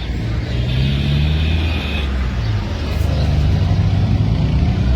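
Road traffic: motor vehicle engines running close by, the engine pitch rising twice.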